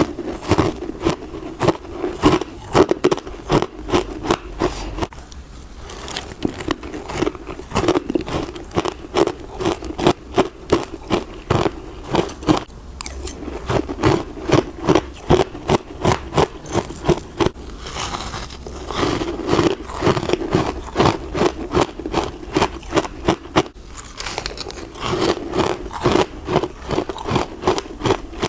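Hard frozen passion fruit ice and crispy dry frost being bitten and chewed close to the microphone: rapid, crisp crunches in runs, with short pauses between mouthfuls.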